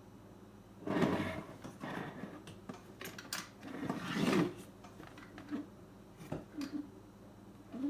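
Handling and prying at the plastic parts of a car radio's LCD display unit: two longer scraping rustles, about a second in and around four seconds in, with scattered small clicks and taps between and after.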